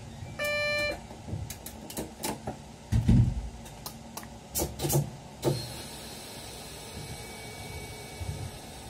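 Inside a stopped train's driver's cab: a short electronic beep, then a run of clicks and knocks over the next few seconds, with one heavier low thump about three seconds in, over a steady hum.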